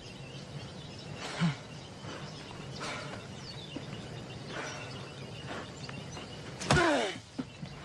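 Steady outdoor ambience with scattered bird calls. Near the end comes a short cry that falls in pitch, the loudest sound here.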